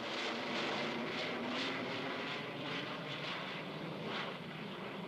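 Jet engines of an Avro Vulcan delta-wing bomber flying overhead: a steady rushing jet noise that fades slightly near the end.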